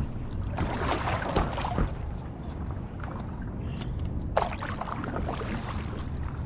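Stand-up paddleboard paddle strokes splashing in the water, one stretch starting about half a second in and another shorter splash a little after four seconds, over a steady low rumble.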